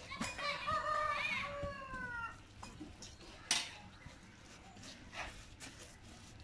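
A rooster crowing once, a call of about two seconds that falls in pitch at the end. Two brief noisy sounds follow in the second half.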